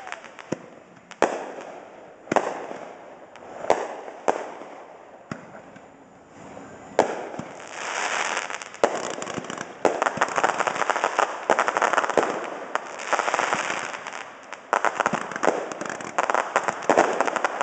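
Aerial firework shells bursting, a sharp report about every second at first, then from about seven seconds in a denser run of bursts with rapid crackling.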